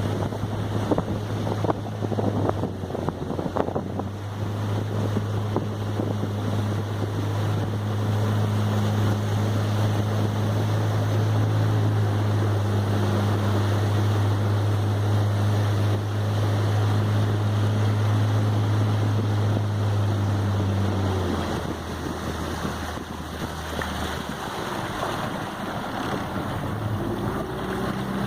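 A motorboat's engine runs at a steady note, with water rushing past and wind buffeting the microphone. About three-quarters of the way through, the engine note drops lower. There are a few knocks in the first seconds.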